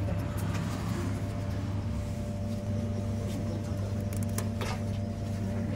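Steady low machine hum, with a few sharp clicks and a knock about four seconds in as the hinged metal door of a Nissin cup noodle vending machine's hot-water compartment is opened and a paper noodle cup is set inside.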